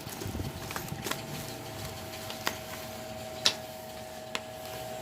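A few sharp clicks and taps as small exhaust-mounting hardware and packaging are handled, the loudest about three and a half seconds in, over a steady faint hum.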